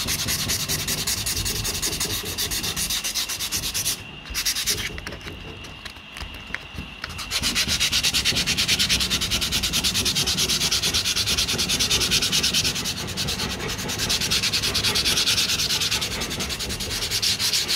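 Hand sanding of cured body filler on a Mk2 Ford Escort's steel bonnet with a folded sheet of sandpaper: fast, short back-and-forth rubbing strokes. The rubbing drops away for about three seconds around four seconds in, then resumes steadily.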